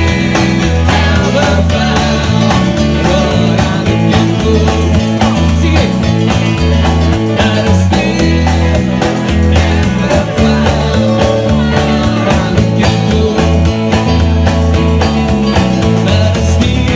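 A rock song played by a band with singing, guitars and drums, at a steady driving beat.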